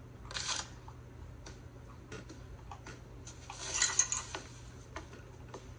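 Scattered light clicks and clinks of small hard objects being handled, with two short rustling, hissing bursts, one about half a second in and a louder one near four seconds in, over a steady low hum.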